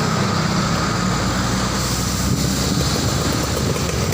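A tour bus's diesel engine running steadily, a deep rumble under a broad noisy hiss.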